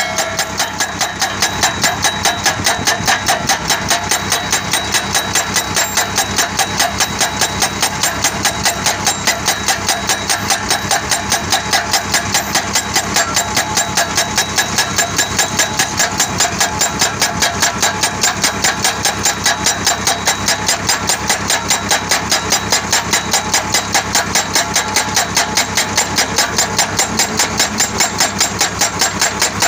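Tractor-mounted hydraulic breaker pounding a steel fence post into the ground with a rapid, even hammering of about five blows a second, over the Sonalika tractor's running engine.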